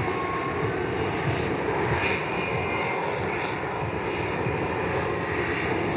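Lockheed Martin F-35B Lightning II's single Pratt & Whitney F135 jet engine running at high power: a steady, dense jet noise with a faint high whine over it.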